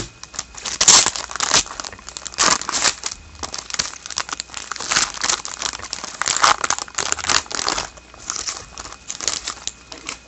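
An Upper Deck hockey card pack wrapper being torn open and crinkled in the hands, an irregular run of crackly rustles and crumples.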